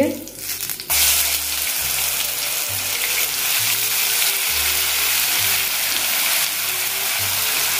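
Ground onion, garlic and green chilli paste hitting hot oil with cumin seeds in a frying pan: it starts to sizzle suddenly about a second in and keeps frying steadily as it is stirred with a spatula.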